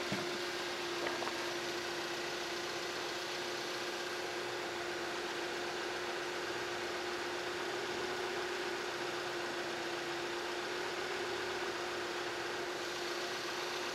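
Steady mechanical hum with one constant mid-pitched tone over a even hiss.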